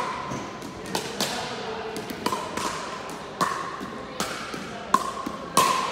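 Pickleball rally: a hard plastic ball popping off paddles and bouncing on a wooden floor, sharp knocks about every half second to a second, each ringing briefly and echoing in a large sports hall.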